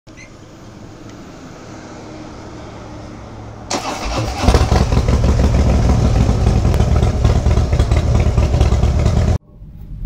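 A low steady hum, then about four seconds in a Harley-Davidson V-twin engine starts and settles into a loud, deep idle. The sound cuts off suddenly near the end.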